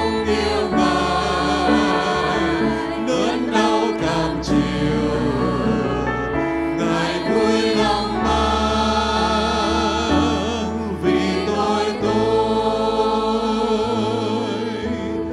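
Choir singing a Christian worship song with instrumental accompaniment, sustained vibrato voices over held bass notes that change every few seconds.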